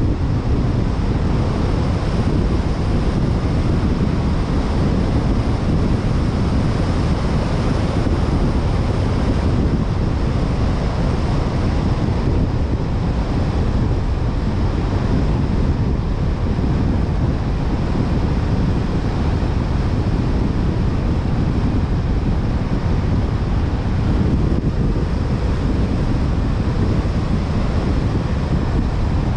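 Steady rush of wind buffeting the microphone of a car driving along at road speed, mixed with the low rumble of tyres on asphalt.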